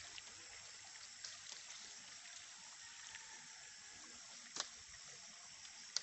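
Faint, steady outdoor background hiss among forest vegetation, with a sharp snap about four and a half seconds in and another at the very end.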